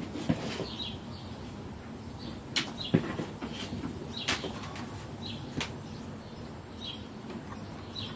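Scattered sharp relay clicks from a Bosch Serie 2 Silence dishwasher's control board as it powers up after being plugged back in, the loudest two close together about three seconds in. Faint short high chirps come roughly every second over a steady high whine.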